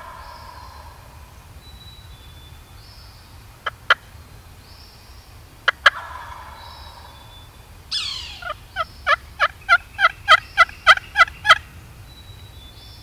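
Wild turkeys: sharp clucks, each pair followed by a gobble, once just after the start and again about six seconds in. From about eight seconds in there is a run of about a dozen evenly spaced, loud yelps, roughly four a second.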